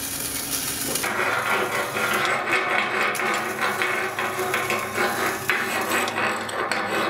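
Electric arc welding crackling and hissing on a steel seam, joined from about a second in by a chipping hammer tapping and scraping slag off a weld bead.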